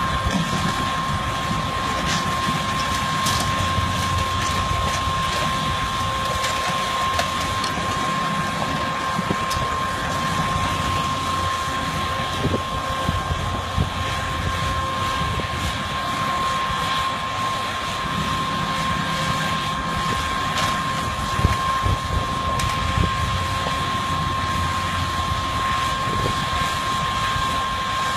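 Heavy demolition machinery running steadily, with a low rumble and a constant high whine, and occasional knocks and crunches of breaking material.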